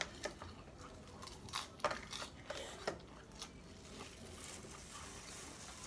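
Eating sounds: a scattering of short, crisp crackles as a lettuce leaf is torn and chewed, mostly in the first three seconds or so, quieter after.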